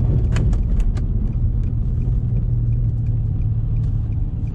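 Single-turbo Nissan G35's V6 running steadily while driving, heard from inside the cabin as a low rumble. A few sharp clicks come in the first second, then a faint, evenly repeating tick of about three a second.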